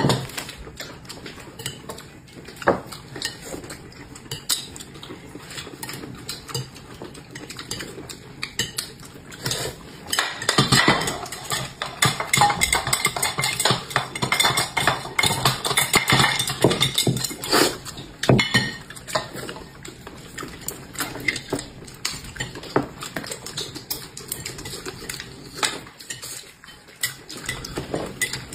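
Eating utensils clicking and clinking against dishes in quick, irregular strokes during fast eating, busiest in the middle stretch.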